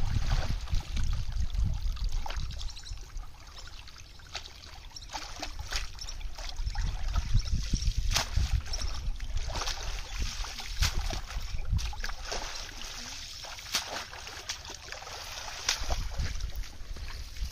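Water splashing and dripping as a cast net is hauled out of a shallow pond by hand, with the sloshing of legs wading through the water.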